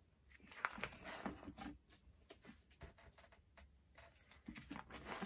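Faint rustling and light clicks of photocards in plastic sleeves being handled and slid into binder pockets.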